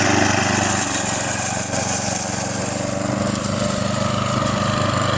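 Walk-behind lawn mower's small engine running steadily as the mower is pushed back and forth over grass.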